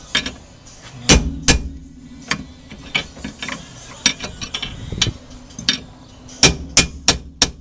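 Sharp metal-on-metal strikes and clinks, about a dozen at an irregular pace with a quick run of them near the end: a tool being struck against the stuck inner bearing race to drive it off the rear axle spindle of a 1993 Honda Civic.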